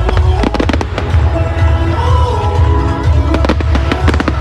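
Fireworks going off over loud music with a heavy bass: clusters of sharp bangs and crackles in the first second and again about three and a half seconds in.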